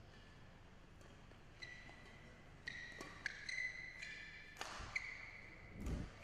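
Badminton rally: several sharp racket strikes on the shuttlecock, with short squeaks of players' shoes on the court surface, starting about a second and a half in.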